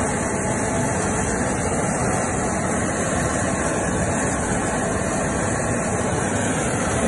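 Sea King helicopter's engines and rotor running steadily, a loud unbroken roar heard from the open cabin door.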